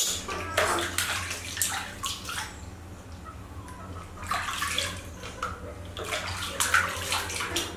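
Water splashing and sloshing in a plastic washbasin as hands wash a baby monkey, in irregular bursts.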